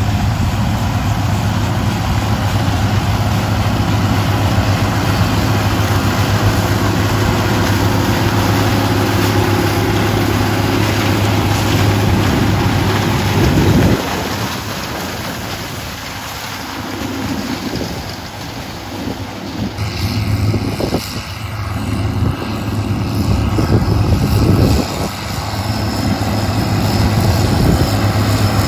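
John Deere 4630's turbocharged six-cylinder diesel engine running steadily under load with a deep hum. It drops quieter for several seconds in the middle, then comes back up near the end.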